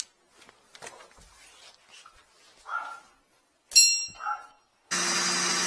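Tools and equipment being handled with a few clicks and knocks, a sharp ringing metallic clang about three and a half seconds in, then an electric machine switching on about five seconds in and running with a steady hum.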